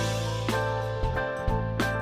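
Instrumental background music: sustained notes over a steady bass, with short drum hits.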